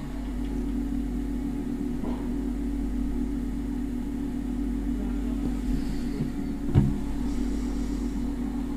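Steady low hum, with a single short thump about seven seconds in.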